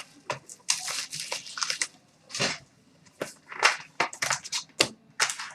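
Packaging crinkling and tearing in uneven bursts as a pack of hockey trading cards is opened.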